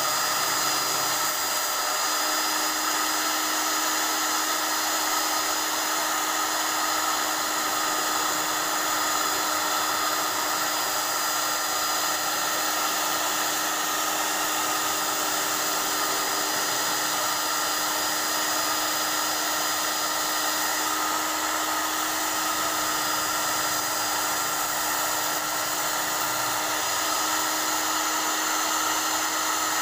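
Electric belt sander running steadily, a constant whine over a hiss, as the edge of a curved wooden piece is sanded smooth on its belt.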